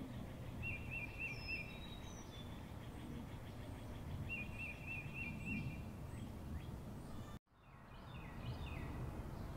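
Birdsong over a steady low outdoor background: a short wavering phrase of four or five notes, repeated roughly every three and a half seconds, with scattered higher chirps. The sound cuts out briefly about three quarters of the way in, then comes back.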